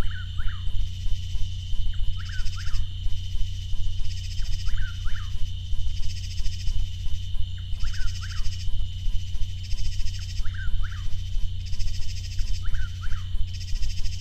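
Chuck-will's-widow calling over and over, a short whistled phrase of gliding notes about every two and a half seconds, over a steady low hum.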